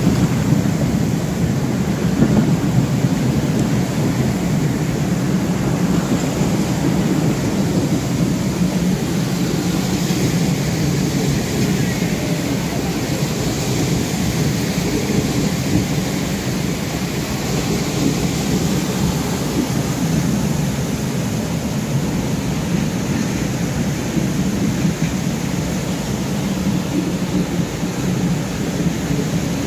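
Passenger train rolling through floodwater over the track, its wheels and bogies churning the water into a continuous rushing splash over a deep, steady rumble.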